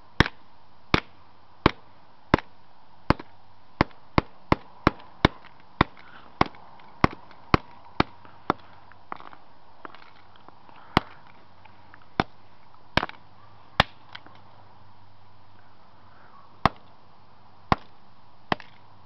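An old LG flip phone being smashed with repeated sharp blows, about one every 0.7 s and briefly quicker, then slowing to scattered single strikes in the second half.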